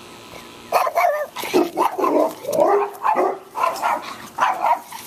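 Dog barking in a quick run of loud barks, about two a second, starting a little under a second in.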